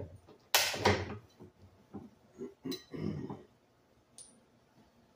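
Steel keyway-broaching tooling clanking against the metal bed of a hand-wheel press. Two sharp clanks come about half a second and a second in, then a run of lighter knocks, and a single high ping near the end.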